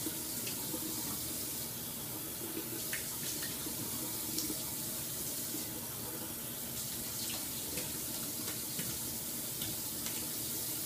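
Bathroom tap running steadily into the sink, with a few light splashes as hands rinse the face with water.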